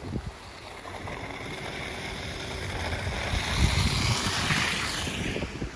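Storm wind buffeting the microphone in low gusts, with a rushing hiss that swells to a peak about four seconds in and then drops off.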